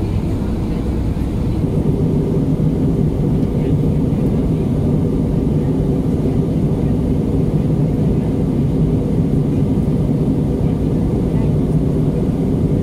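Steady cabin noise of an Airbus A319 in flight: an even, unbroken rumble of engines and airflow, deepest and strongest low down.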